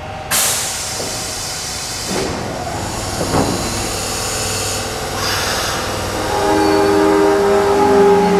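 Osaka Subway 70 series linear-motor train at a platform: a sudden loud hiss as the doors close, then, from about six seconds in, the steady whine of its linear-motor drive growing louder as the train starts to pull away.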